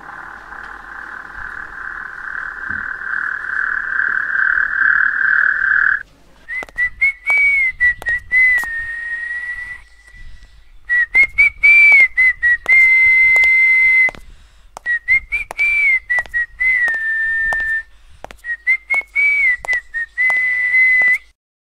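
A whistled tune in four short phrases, each a quick rise and fall that settles on a held note, with sharp clicks over it. Before it, a steady pulsing tone grows louder for about six seconds and cuts off suddenly.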